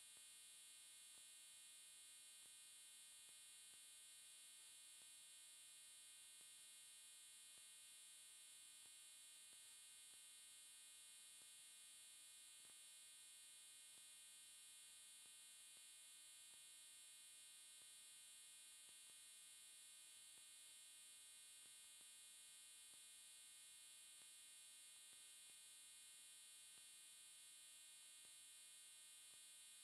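Near silence: only a faint, steady electronic hum and hiss, with no sound of the hands or the wet sand.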